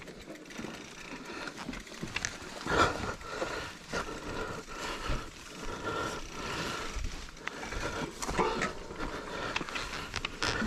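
Mountain bike riding over a rough dirt trail: tyres on dirt and rock, and the bike rattling with irregular knocks over bumps.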